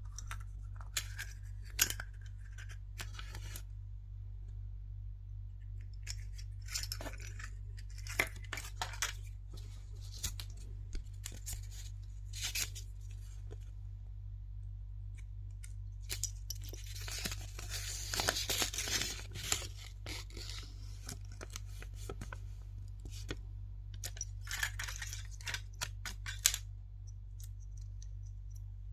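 Hands unwrapping a surprise egg: crinkling and tearing of its wrapper, with scattered sharp clicks and taps. It is busiest in a long crinkling stretch past the middle, over a steady low hum.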